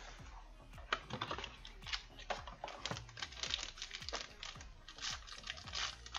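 Irregular light clicks, taps and crinkles of hands handling a Tier One baseball card box and opening the foil-wrapped pack inside it.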